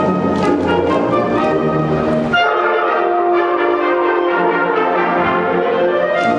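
Concert wind band playing, led by brass, with sharp percussive clicks ticking along over the first couple of seconds. The clicks then stop abruptly and held brass chords carry on.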